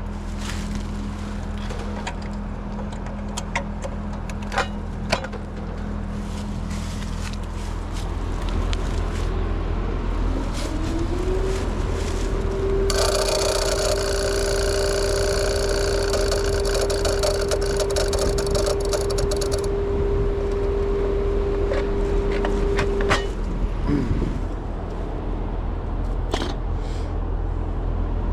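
Old Trane two-stage outdoor air-conditioning unit powered up for a start attempt on its second compressor, rewired with a start capacitor and relay. A steady electrical hum runs throughout. A tone rises at about eleven seconds, holds steady for about twelve seconds, then cuts off, with a stretch of hiss in the middle. The attempt does not get the compressor running.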